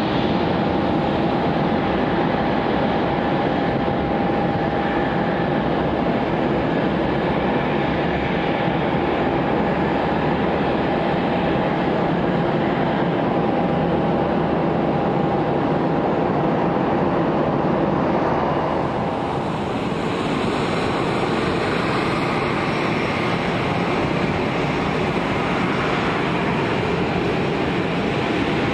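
Airliner jet engines at idle and taxi power, from a Boeing 757 and a Boeing 767: a steady rush of noise with a steady whine. Right at the end a higher whine starts to rise, the beginning of the 767's spool-up for its takeoff roll.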